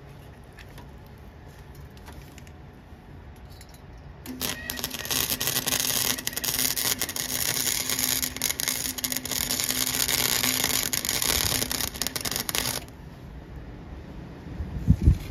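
Flux-core wire welder arc crackling steadily for about eight seconds, starting about four seconds in and cutting off near thirteen seconds, with a steady hum beneath it while the arc runs. A brief low thump comes near the end.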